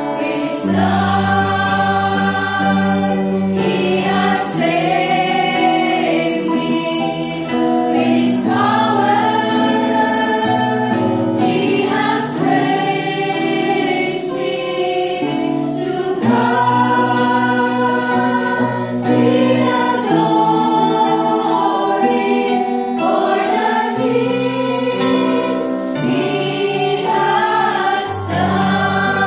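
Women's voices singing a gospel hymn together over amplified microphones, backed by electric guitar and electronic keyboard.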